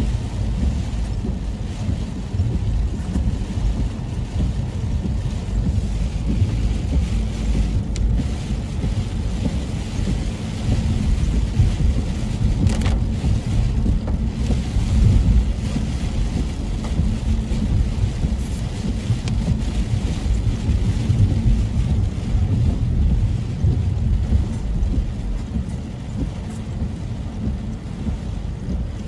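Car interior noise while driving on a rain-soaked road: a steady low rumble of tyres on the wet road with rain hissing on the windshield, and a couple of brief sharp ticks.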